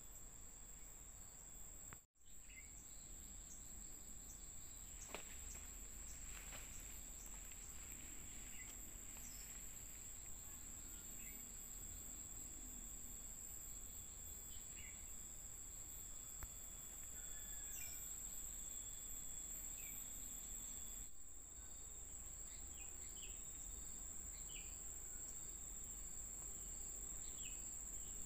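A steady high-pitched drone of insects, with many short falling bird chirps scattered through it. The sound drops out for an instant about two seconds in.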